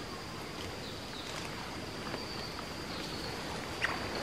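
Rainforest ambience: an insect's steady high-pitched buzz held on one note over a soft, even hiss, with a few faint short sounds near the end.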